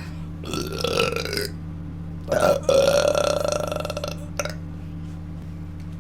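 A person burping loudly twice: a burp about half a second in, then a longer one starting about two and a half seconds in that holds a steady pitch for over a second before trailing off.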